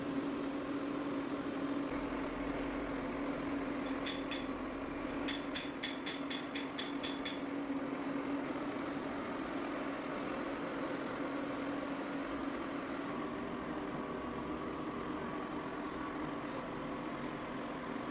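Lathe running with a steady machine hum, with a short run of about ten sharp ticks about four seconds in.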